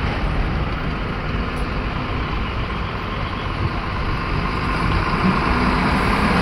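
A Tata truck's engine running as the truck drives past and pulls away along the road, a steady heavy rumble.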